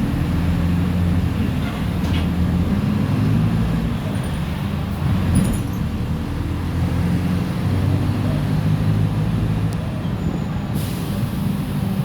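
Mercedes-Benz OF-1418 bus's diesel engine running under way, its note shifting up and down in pitch as the bus changes speed.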